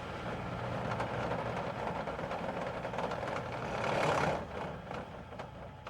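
Ambulance helicopter's engine and rotor running down after shutdown: a steady hum that swells to a rush of noise about four seconds in, then drops away and fades.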